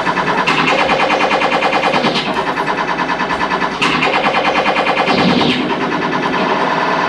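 Fast electronic music with a rapid, rattling pulse under steady tones, in phrases that restart about every second and a half.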